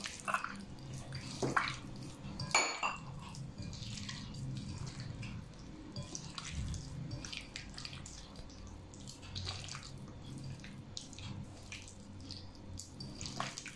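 Quiet, wet squishing of a hand squeezing raw egg into soft margarine and sugar in a glass bowl, with a few light clicks against the glass, mostly in the first few seconds.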